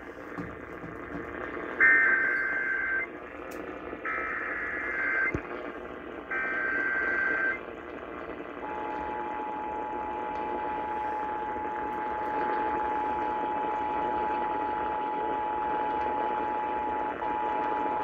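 Emergency Alert System test broadcast on 760 AM played through a CL100 weather alert radio's speaker over AM static: three harsh data bursts of about a second each, then, about eight and a half seconds in, the steady two-tone EAS attention signal that holds on.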